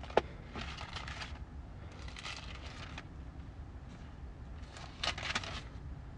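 Paper pages rustling in three short spells as they are turned, with a single sharp click just after the start, over a steady low hum.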